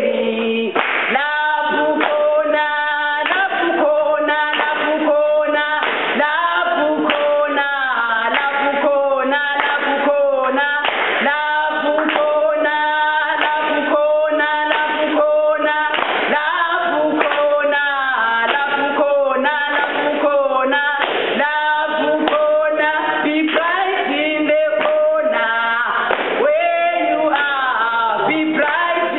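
Two sisters singing a song.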